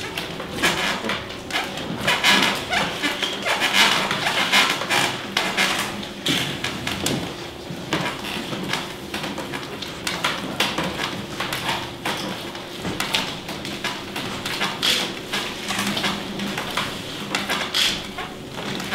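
Hand and forearm squelching and slapping through a tray of wet white mush: a busy, irregular run of wet squishes and splats, over a faint steady low hum.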